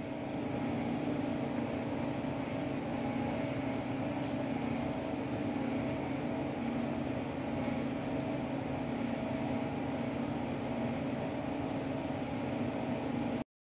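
A steady mechanical hum with a few low, even tones over a constant hiss, like a running fan or motor. It cuts off abruptly at the very end.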